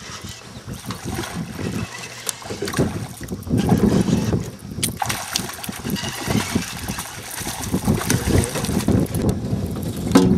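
Wind buffeting the microphone and water splashing around a small fishing boat, with a few sharp knocks.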